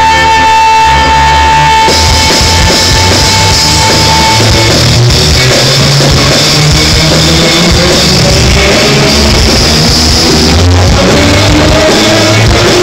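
Live band playing loudly through a PA during a sound check, with electric guitar and drum kit. A held high note fades out about four seconds in, and a note slides upward near the end.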